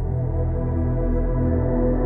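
Ambient background music: held, steady tones over a low, pulsing bass.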